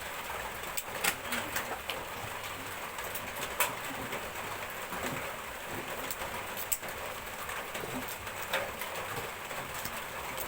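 Steady rain falling, with scattered sharp cracks and clicks like peanut shells being split by hand, and a dove cooing faintly.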